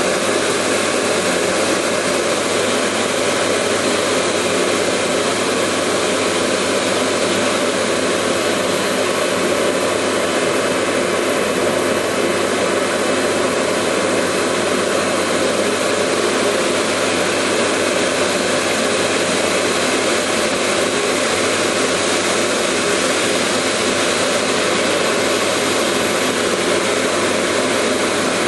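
Industrial laser cutting machine running while it cuts sheet metal: a loud, steady rush of noise with a faint constant hum, unchanging throughout.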